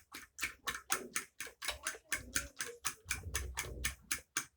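A utensil beating cake batter in a plate, clicking against the plate in a quick, even rhythm of about five strokes a second.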